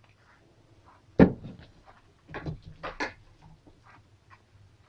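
Tableware handled on a kitchen table: a single knock about a second in as a plate is set down, then a few lighter clatters as a plastic cutting board and knife are picked up.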